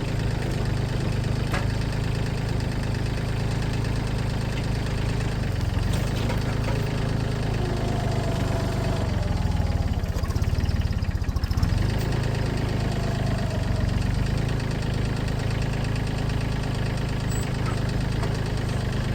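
Gas engine idling at a steady, even speed, with a louder, pulsing patch about ten seconds in.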